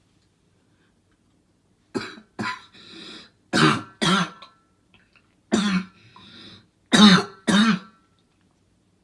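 A person coughing hard, seven coughs mostly in pairs starting about two seconds in, with short breaths drawn in between.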